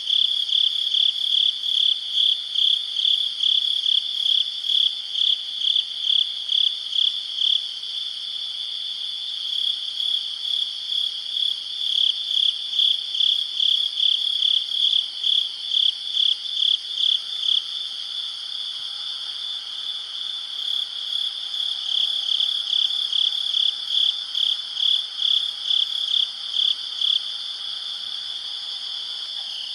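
Crickets chirping: a high, pulsing chirp about twice a second that pauses for a few seconds now and then, over a steady high insect trill.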